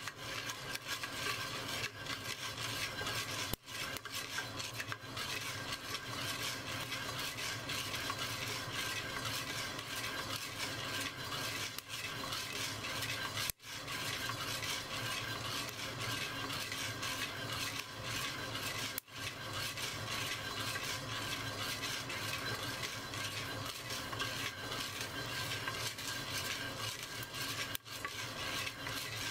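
Coffee beans being stirred in a ceramic roasting pot: a continuous dry rattling and scraping, broken four times by brief pauses.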